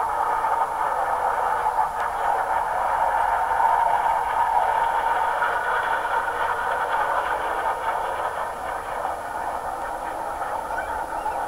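Jet aircraft engine noise, a steady loud rush that swells slightly a few seconds in and eases a little toward the end as the display aircraft passes.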